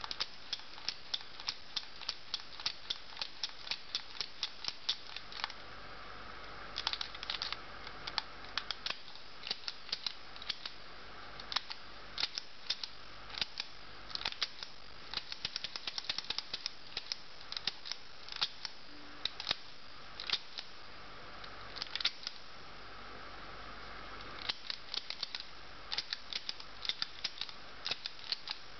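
Penol pocket mechanical adding and subtracting calculator clicking as it is operated and its digit counters change: many sharp plastic clicks, some singly and some in quick runs, with short pauses between.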